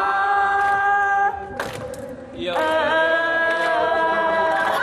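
A woman singing a Vietnamese song unaccompanied, holding a long drawn-out note, breaking off briefly for a breath about a second and a half in, then holding another long note with a slight waver.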